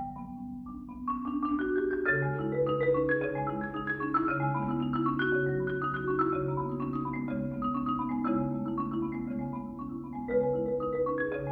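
Solo marimba played with mallets: a fast, rippling stream of repeated notes over a low bass note, growing louder about a second in.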